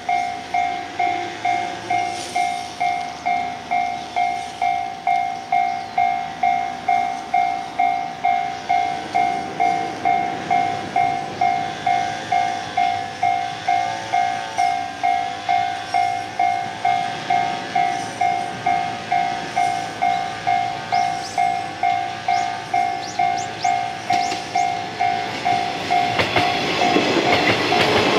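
Level crossing warning bell ringing steadily, about two dings a second. Near the end a yellow 113-series electric train passes close by, its wheels rumbling and clacking over the rails, louder for the last couple of seconds.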